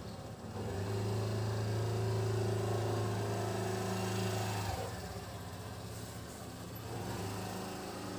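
A motor's steady low hum, starting about a second in, dropping off a little before the five-second mark and returning more faintly near the end.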